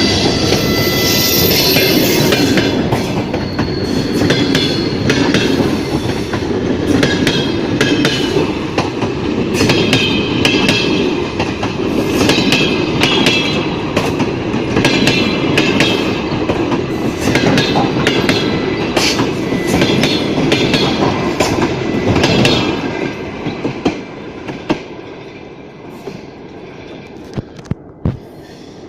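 Passenger coaches rolling past, wheels clicking rhythmically over rail joints with high-pitched wheel squeal. About 23 seconds in the last coach passes and the sound falls away to a fainter receding rumble, with a few sharp clicks near the end.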